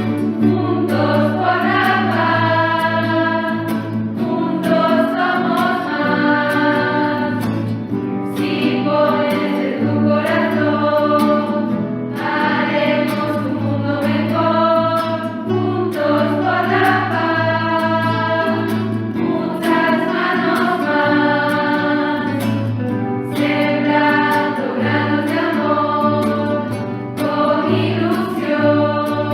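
A choir singing a sacred-sounding song in phrases of a few seconds each, over a steady low accompaniment.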